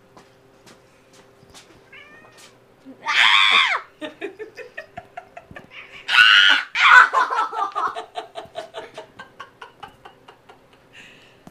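Domestic cat yowling while being handled: a short meow, then two loud drawn-out yowls, with a rapid pulsing stutter between and after them that fades away near the end.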